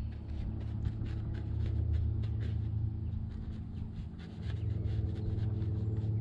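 A vehicle engine idling close by, a steady low rumble, with many quick light scratching ticks over it.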